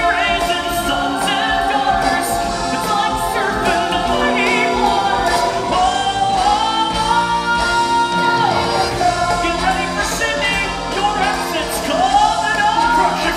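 A song from a stage musical: singing voices carry a melody with held, sliding notes over a steady musical accompaniment.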